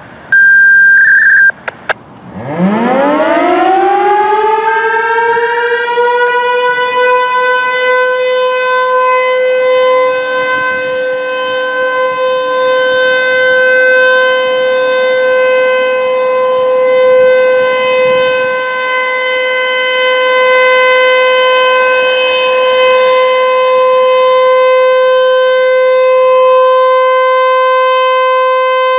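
ASC T-135 AC/DC outdoor warning siren winding up from a low growl to a steady full-alert tone, then holding one loud pitch that swells and fades slightly every few seconds. A short, very loud beep about a second long sounds just before the wind-up begins.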